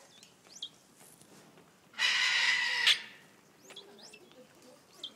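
Vulturine guineafowl calling: one harsh, rasping call of just under a second comes about two seconds in. A few short, high chirps that drop quickly in pitch sound before and after it.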